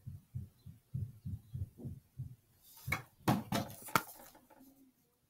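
Handling noise from a baseball patch card held close to the microphone: about ten soft, low thumps over two seconds, then a burst of rustling with a few sharp clicks as the card is moved and turned over.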